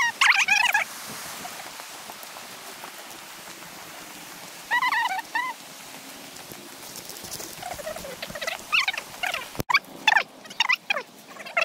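Birds calling in short runs of warbling, pitched calls. One run comes right at the start, another about five seconds in, and a string of calls comes in the last few seconds.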